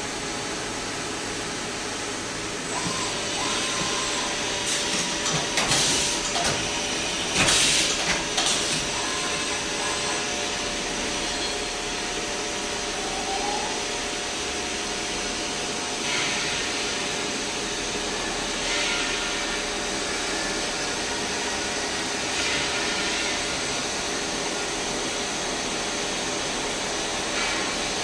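CNC milling machine running a job: a steady machine whir with several steady whining tones, and a few louder noisy bursts about six to nine seconds in.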